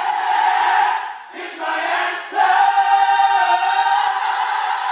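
Gospel choir singing in harmony, holding long sustained notes; a short break about a second in, then one long held chord.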